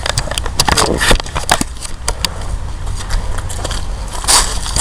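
Footsteps crunching through dry leaves and twigs: irregular crackles and snaps, with a louder crunch near the end, over a steady low rumble.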